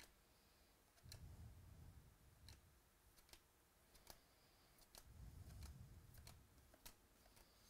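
Faint ticks of baseball cards being flipped one by one from the front of a hand-held stack to the back, about one sharp tick a second, over soft handling rustle.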